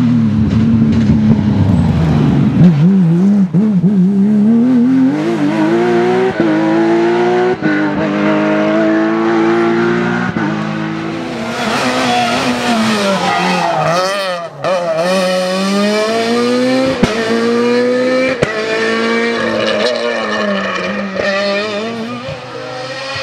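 Rally cars at full throttle on a tarmac special stage, first a Porsche 911 GT3 and then a smaller rally car. The engines rev hard up through the gears, each climb in pitch breaking off at an upshift, and one car passes close about halfway through, its pitch dropping as it goes by.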